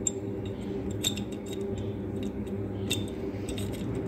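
Small metallic clicks and light scraping as the fixing nut under a wash basin mixer tap is turned by hand, with sharper clicks about one and three seconds in. A steady low hum sits underneath.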